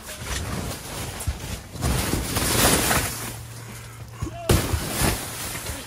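Canvas tent roof fabric rustling and scraping as it is pushed up to clear snow off it, with a long rush of noise around the middle and two sharp thumps near the end.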